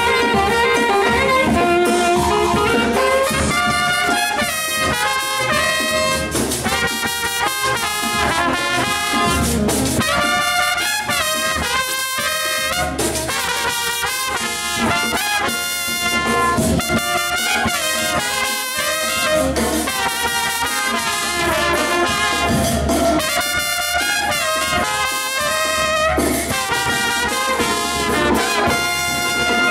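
Saxophones and trumpets of a live Andean festival orchestra playing a lively tune in quick, repeated short notes, with the trumpets to the fore later on.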